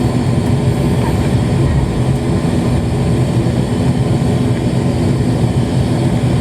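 Propeller airliner's turboprop engines and propellers running with a steady, even drone.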